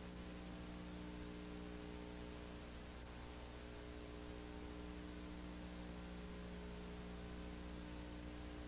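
Faint, steady electrical mains hum with a low hiss, the empty sound track of an old videotape.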